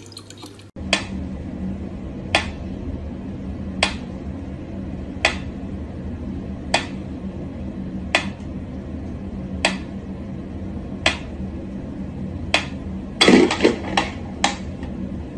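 Mechanical pendulum metronome ticking slowly and evenly, one sharp tick about every second and a half. Near the end a louder rustling burst comes with a few quicker knocks.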